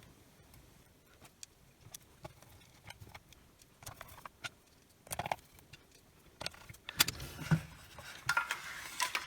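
Scattered light clicks and taps of screws, a screwdriver and plastic housing parts being handled while a cordless circular saw's motor is screwed back into its housing, getting busier and louder near the end.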